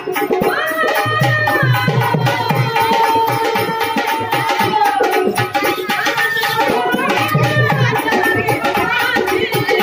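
Live devotional folk music: hand drums played in a steady rhythm under a sustained vocal melody that glides up and down.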